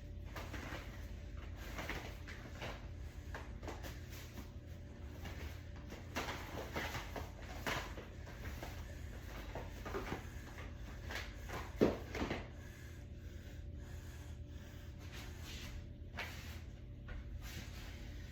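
Someone rummaging through a cupboard or shelf of DVDs, with scattered light knocks, clicks and shuffling of cases and doors and one sharper knock about twelve seconds in.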